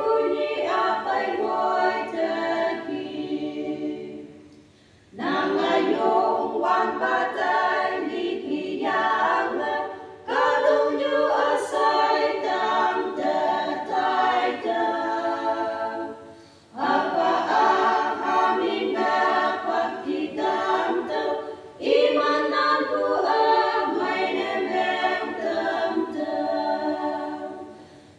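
A small group of women singing a hymn a cappella. The sung phrases last about five or six seconds each, with short breaks for breath between them.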